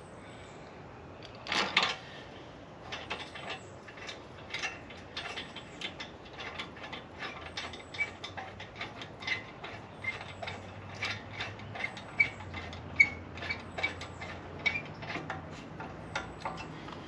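Irregular clicks, taps and light metallic clinks of small hard parts being handled, several a second, with a louder knock about two seconds in.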